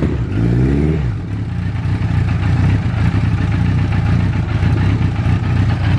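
1982 Kawasaki KZ1000 air-cooled inline-four, bored out to 1075 cc, running just after start-up. A short rising rev about half a second in, then a steady idle.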